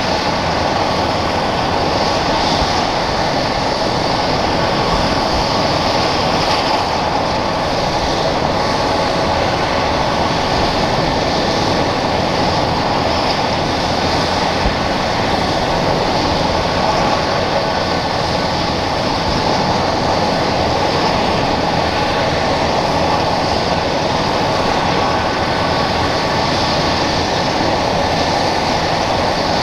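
Airbus EC135 helicopter's twin turboshaft engines and main rotor running steadily on the ground before take-off: a steady turbine whine over a rushing rotor noise.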